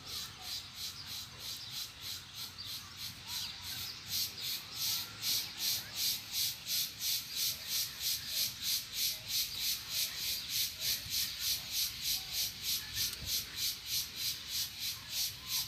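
A high-pitched insect call pulsing evenly, about four pulses a second, growing louder about four seconds in, with a few faint bird chirps behind it.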